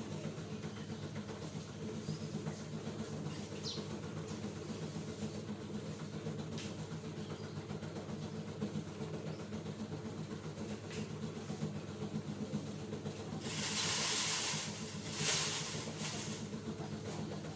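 A motor or engine running steadily with an even low hum. About 14 seconds in come two short bursts of hissing noise.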